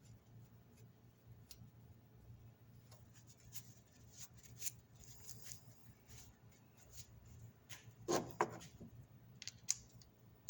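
Faint clicks and scraping of hand tools and parts being handled while refitting a car's thermostat housing, with a brief louder knock about eight seconds in.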